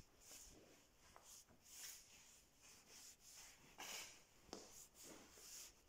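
Near silence with faint, soft scuffs and rustles at an irregular pace of about two a second: footsteps on a concrete floor and the handling of a hand-held phone by the person filming.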